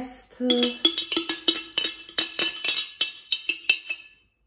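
Metal teaspoon clinking and scraping inside a glass jar while the last thick milk kefir is scraped out: a quick run of ringing clinks, about five or six a second, that stops near the end.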